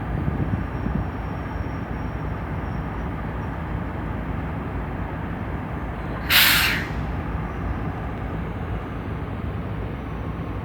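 TE33A diesel locomotive's GEVO-12 V12 diesel engine running with a steady deep rumble. About six seconds in, a short, sharp burst of compressed air vents with a loud hiss, the locomotive's 'sneeze'.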